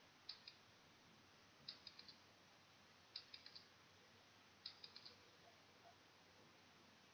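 Faint clicking sound effect of a quiz countdown timer: four small clusters of two to four quick clicks, about one and a half seconds apart.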